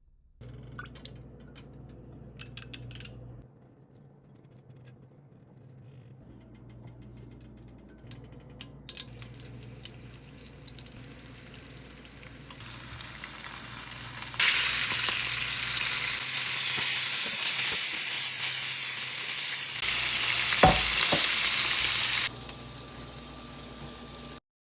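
Flour-coated capelin frying in hot vegetable oil, the oil sizzling. It is faint at first with a few clicks of handling, then swells to a loud, steady hiss about halfway through, with a single short knock shortly before it drops back near the end.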